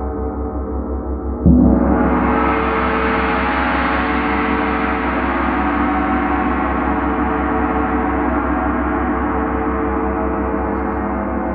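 A large Paiste gong, already ringing, is struck with a felt mallet about a second and a half in. Its sound swells and brightens over about a second, then rings on, slowly fading.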